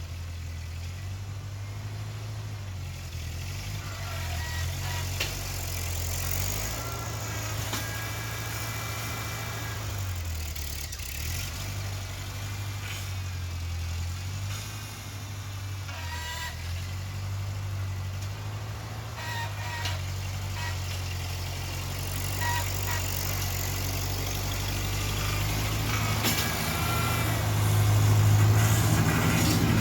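An engine running, its speed rising and falling, getting louder near the end.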